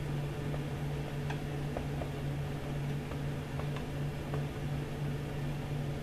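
Steady low hum of a fan or air-conditioning unit in a small room, with a few faint ticks from a marker writing on a whiteboard.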